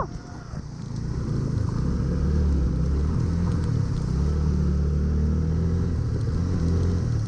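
Motorcycle engine running while riding, a steady low drone that builds over the first second or two and then holds.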